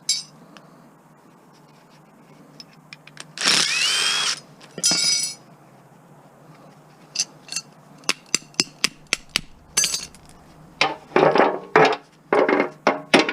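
Small metal parts and hand tools clinking and scraping: a ringing scrape about three and a half seconds in and another shortly after, then a run of quick sharp clicks and clinks.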